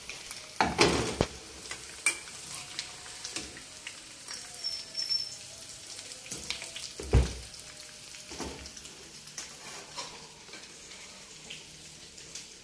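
Boiled potato chunks sizzling as they fry in hot oil in a pan, with a steel slotted spatula clinking and scraping against the pan and a steel plate as the potatoes are lifted out. A heavier knock comes about seven seconds in.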